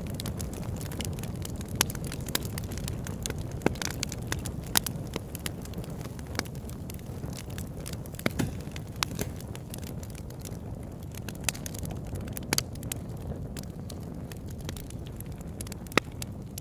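Campfire burning: a steady low rush from the flames with irregular sharp crackles and pops, a few of them much louder than the rest.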